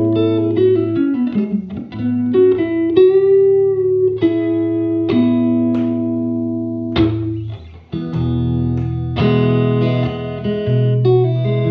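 Electric guitar played through a tube amp on a clean setting. Sustained single notes slide down and bend up, and after a short break about eight seconds in, fuller chords ring out.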